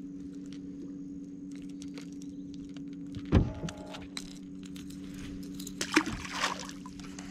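A steady low motor hum, with scattered light clicks and rattles and a sharp knock a little over three seconds in.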